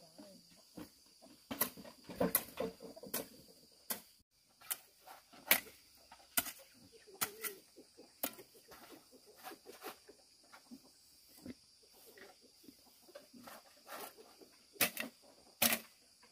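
Irregular sharp knocks and clicks, sometimes several a second, with the loudest strokes about two seconds in, about five seconds in and near the end, over a faint steady high hum.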